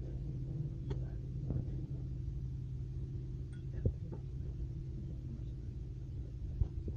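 Steady low hum with a few scattered light clicks and knocks of plates and dishes being handled.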